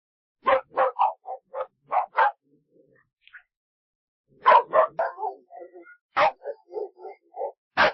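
A dog barking in quick runs of short, sharp barks: about seven in a row, a pause of about two seconds, then another rapid run with a few louder single barks.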